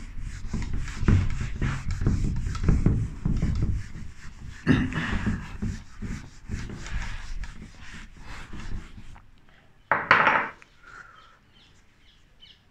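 Irregular rubbing and scraping with many short strokes, dying away after about nine seconds, then one short louder scrape about ten seconds in.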